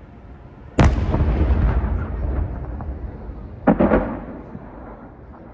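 Aerial fireworks shells bursting: a loud boom about a second in, followed by a long rolling rumble with crackling that slowly fades, then a second, smaller burst with crackle a little past halfway.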